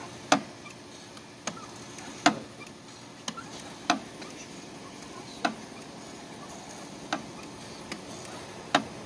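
A compact tractor's clutch pedal being pushed down and let back by hand, clacking sharply with each stroke, about once a second at uneven intervals. The engine is off, and the clutch is not working at all.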